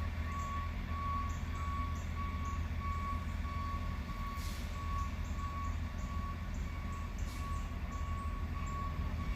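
Heavy diesel construction vehicle running with its backup alarm sounding: a steady repeating beep over a low engine rumble, the sign that it is reversing.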